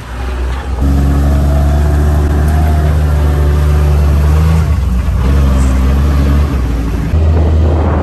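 Off-road UTV's engine running steadily as the vehicle drives along a dirt track, with brief dips about five and seven seconds in.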